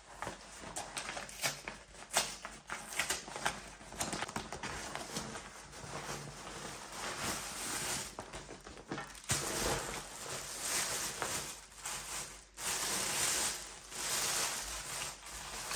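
Brown kraft-paper parcel being torn open and handled, with its white-wrapped contents pulled out: continuous paper rustling and crinkling with sharp crackles, pausing briefly about two-thirds of the way through.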